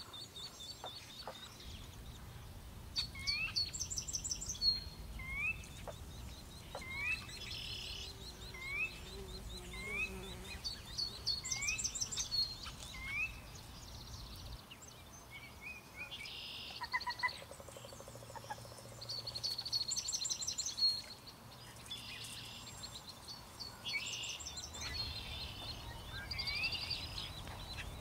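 Marsh bird chorus: several birds singing and calling over one another. A short rising note repeats about once a second, mixed with high buzzy trills and chirps, over a steady low rumble.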